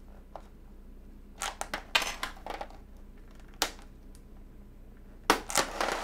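Clicking and clacking of keys, as on a computer keyboard being typed on, in short irregular bursts with pauses between.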